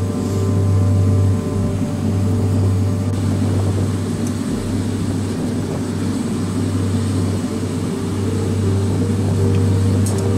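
Gas forge burner running with a steady low rumble that swells and dips slightly every couple of seconds.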